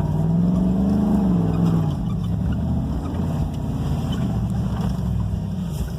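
1999 Ford F-150's engine revving up and easing back off within the first two seconds, then pulling steadily under load, heard from inside the cab.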